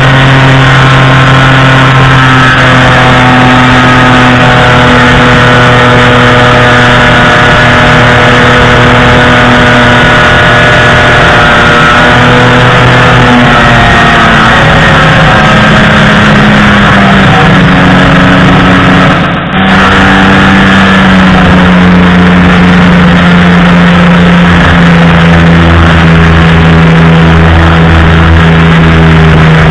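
Polini Thor 250 single-cylinder two-stroke engine of a Just 103 ultralight running in flight, a steady loud note that steps up in pitch about halfway through, with a momentary dip in the sound about two-thirds of the way in.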